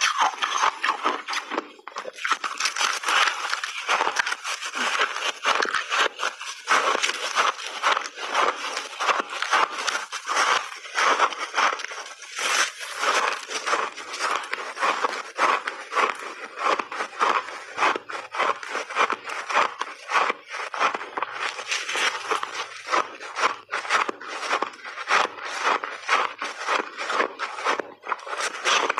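Close-miked crunching and chewing of refrozen ice chunks with mixed berries frozen in: a dense, continuous run of crackling crunches with brief pauses.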